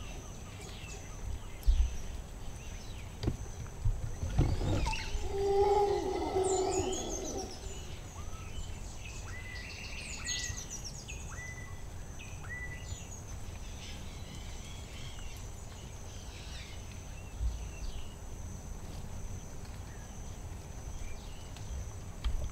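Rainforest ambience: a steady high insect drone under several bird calls, with a low whistled call about five seconds in, a quick falling series of high notes, then a run of short repeated notes. A few dull low thumps, the loudest near the start.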